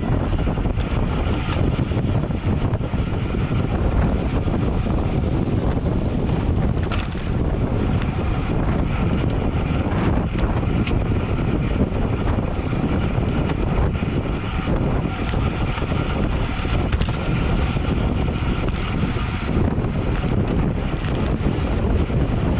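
Wind rushing over the microphone of a camera on a road bike at race speed: a steady, loud, low rumble with a few faint ticks.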